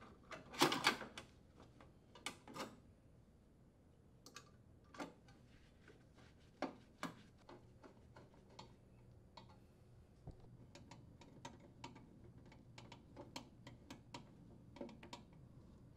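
Faint clicks and light sheet-metal knocks as a metal junction box is set in place on the unit's cabinet, the loudest cluster about a second in, then a run of small quick ticks from a Phillips screwdriver turning screws into the sheet metal.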